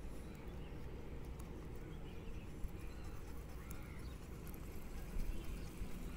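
Steady low rumble of wind on the microphone, with a few faint bird chirps over it.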